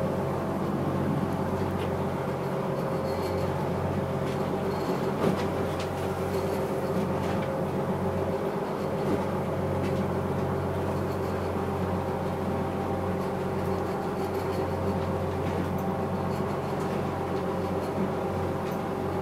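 Fishing boat's engine running steadily under way, a constant drone heard from inside the wheelhouse, with a few faint knocks.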